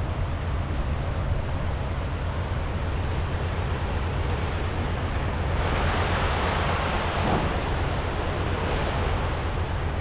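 Small ocean waves breaking and washing up the sand, with a louder surge of surf about halfway through. A steady low rumble of wind on the microphone lies underneath.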